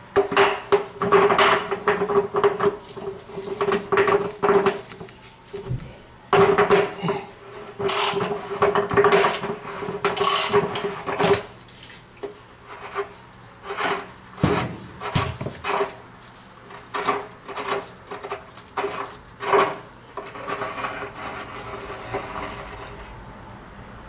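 Upper heating element of an electric water heater being unscrewed from the tank with a 1.5-inch element socket: ratchet clicks and metal scraping, busy at first and then sparser strokes as the socket is turned by hand, ending in a rasping scrape as the long element slides out.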